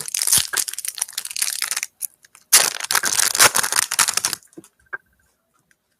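Foil trading-card pack wrapper being torn open and crinkled by hand, in two crackly bursts of about two seconds each, then a couple of faint taps.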